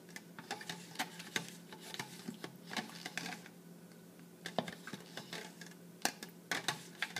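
A metal spoon clicking and scraping against an egg and a plastic cup as the egg is turned in dye. The taps are light and scattered, with a few sharper clicks near the end.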